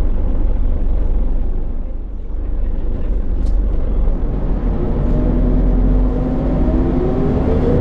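Volvo B10BLE bus heard from inside the cabin: a steady low rumble of its rear-mounted engine, dipping briefly about two seconds in, then an engine note rising in pitch from about five seconds in as the bus picks up speed.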